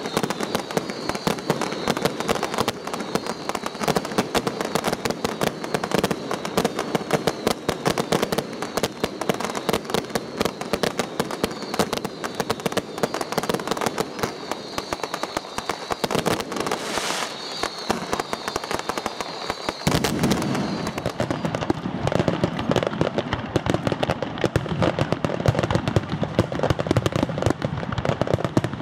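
Fireworks going off in quick succession, a dense run of sharp cracks and pops. About 20 seconds in the sound changes abruptly to fuller, deeper bangs.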